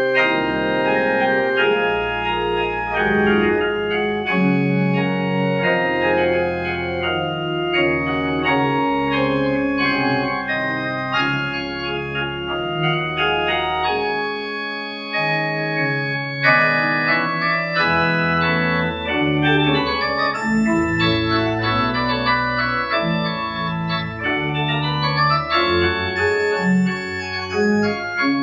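Two-manual church organ playing a postlude: full sustained chords over a moving bass line. The bass drops out briefly about halfway, then the chords come back brighter and higher.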